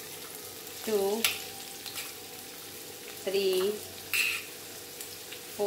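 Chopped onions sizzling as they fry in hot oil in a pan, stirred with a spoon, with a couple of sharp clicks of the spoon on the pan.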